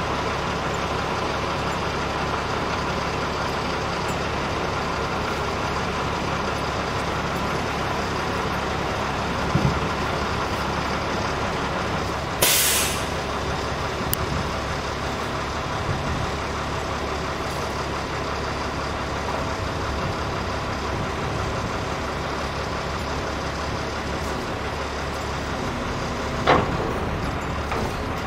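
Heavy truck's diesel engine running steadily, with a short sharp hiss of air from its air brakes about halfway through and two knocks, one about a third of the way in and a louder one near the end.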